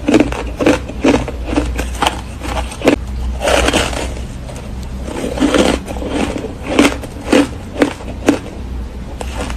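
Close-miked crunching of frozen ice chunks coated in matcha powder as they are bitten and chewed: a run of sharp crunches a few per second, with a fresh bite taken about three and a half seconds in.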